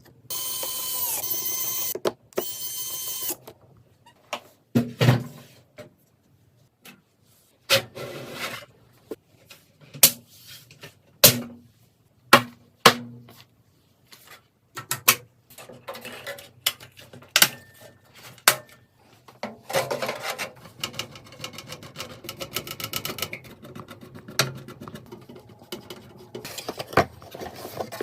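Computer parts being assembled by hand: a small power-tool motor whirs briefly twice, then comes a long run of clicks, knocks and rubbing as components and screws are handled and fitted.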